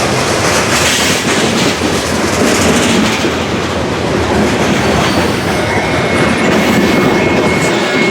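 Freight train's grain hopper cars rolling past with a steady rumble and clickety-clack of wheels over rail joints. About six seconds in, a steady high squeal comes in as the train's brakes bind on the wheels.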